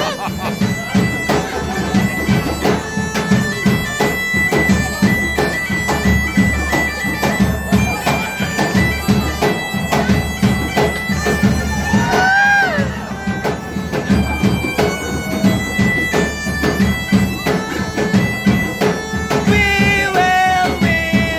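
Bagpipe and drum music: a steady drone under a piping melody, with a regular drum beat, playing without a break.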